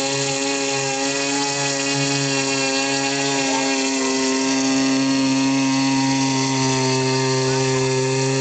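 The motor and propeller of a small radio-controlled model airboat run steadily at a constant pitch as the boat travels across the water.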